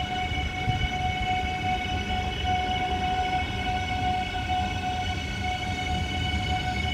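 Melbourne High Capacity Metro Train, an electric multiple unit, passing slowly: a low rumble of wheels on rail with a steady whine of several pitches that holds the same note throughout.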